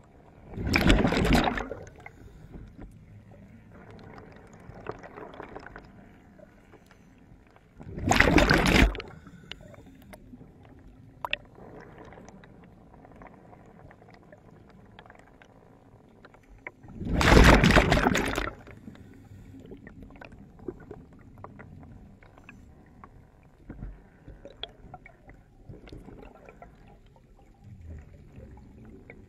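Underwater: three rushing bursts of bubbles, each lasting a second or so, about eight to nine seconds apart, typical of a scuba diver breathing out through a regulator. A few faint clicks come in the quiet stretches between them.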